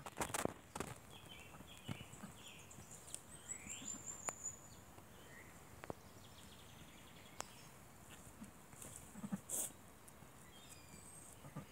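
Faint rustling and small clicks as a ewe licks and nuzzles her newborn lamb in the grass, with a short low sound near the end.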